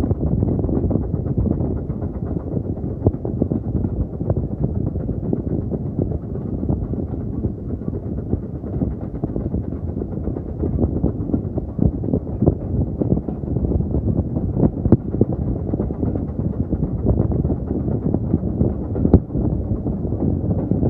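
Railway carriage running along the track: a steady low rumble with frequent small rattles and knocks, and a sharper knock about fifteen seconds in and again near the end.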